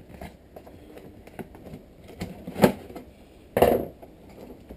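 Cardboard and plastic packaging being handled and opened by hand: scattered light clicks and rustles, a sharp snap about two and a half seconds in, and a brief louder rustle a second later.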